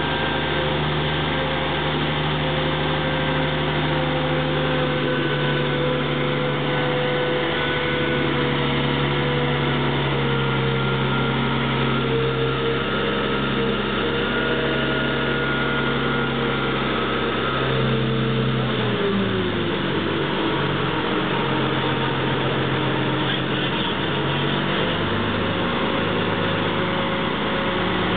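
Diesel power pack of a heavy-haulage self-propelled modular transporter running steadily under a 400-tonne transformer load. Its engine speed drops about two-thirds of the way in, then picks up again near the end.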